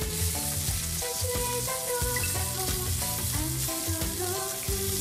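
Korean beef (hanwoo) tenderloin steaks sizzling steadily as they sear in a hot pan with butter. Background music with a steady beat plays over them.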